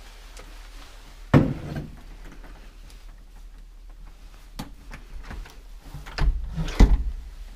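A sharp knock, then a few light knocks and a louder cluster of thumps near the end, like a hard object being handled, bumped or moved.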